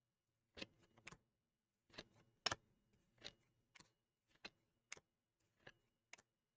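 Panini Absolute football trading cards being flipped through one by one, each card slid off the stack and tucked behind with a short, sharp click, about ten in an uneven rhythm.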